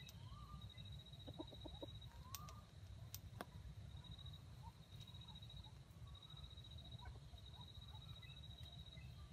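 Faint, scattered short clucking calls of a wild junglefowl rooster, over a steady high trill that breaks off and starts again.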